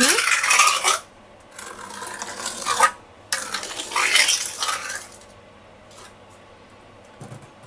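Small trowel scraping and smoothing wet self-levelling compound over the slab in three strokes of about a second and a half each, stopping about five seconds in.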